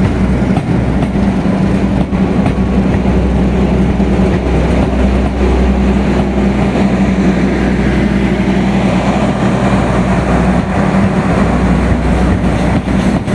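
CC201 diesel-electric locomotive running loud and steady, with a deep engine hum, as its train moves on the rails.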